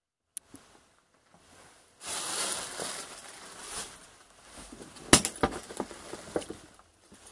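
Crunching, rustling noise, then a sharp knock about five seconds in followed by several lighter clicks and clinks.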